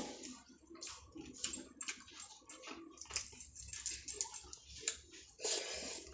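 Close-up eating sounds: wet chewing and mouth smacking of rice and curries, a run of small irregular clicks, with a brief louder rustle near the end.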